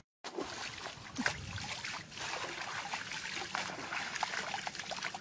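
Water splashing and sloshing in a shallow muddy ditch as a person wades through it and flings water with his hand, in short irregular splashes.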